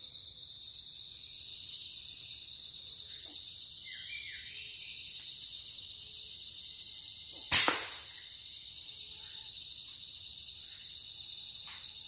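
Steady high-pitched insect chorus, with one sharp, loud crack about seven and a half seconds in that dies away quickly.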